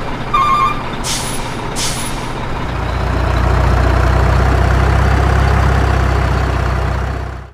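Heavy truck sound effects laid over toy trucks: a reversing beep at the start, two short air-brake hisses about one and two seconds in, then a diesel truck engine running steadily and growing louder from about three seconds in, cutting off suddenly near the end.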